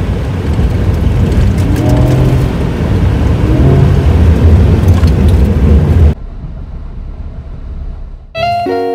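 Cabin road noise of a Ford Raptor pickup on a dirt road: a loud, heavy low rumble from the tyres and body over the rough track. About six seconds in it drops suddenly to a quieter cabin hum, and acoustic guitar music starts near the end.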